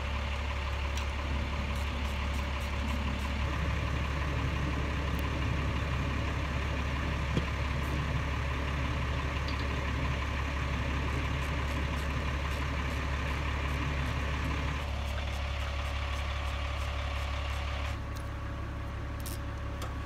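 An engine idling steadily: a constant low drone, with faint light clicks over it. It drops slightly in level near the end.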